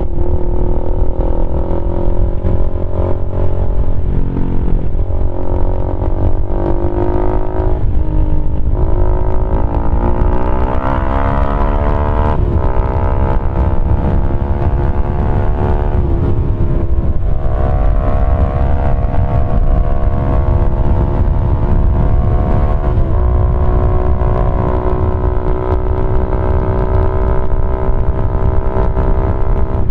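Keeway RKF 125's single-cylinder engine running through a GPR Deeptone exhaust with the dB killer removed, under way. The engine pitch climbs and drops back several times in the first half, as the gears change, then holds a fairly steady cruise with one small dip.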